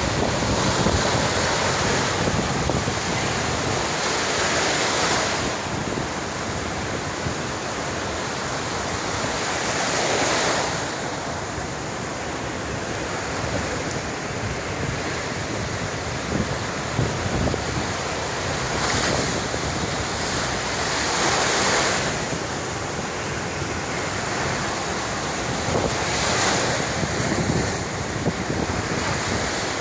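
Surf breaking on a beach: a steady wash of waves with several louder surges as big waves crash, and wind buffeting the microphone.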